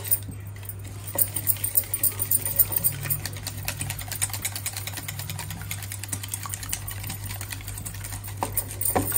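Wire whisk beating eggs in a stainless steel bowl: rapid, even clicking of the wires against the metal.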